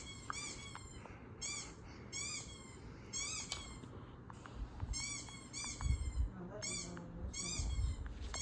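High-pitched dog yips or whimpers, short calls that rise and fall, repeated singly and in quick pairs, with a few low thumps in between.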